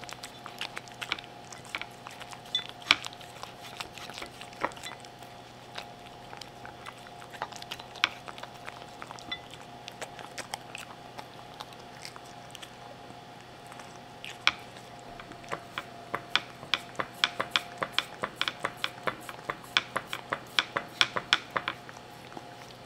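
Close-miked small poodle licking and chewing the last scraps from a ceramic bowl: scattered wet clicks and small crunches, then a quick run of licks, about three to four a second, over the last several seconds. A faint steady hum sits underneath.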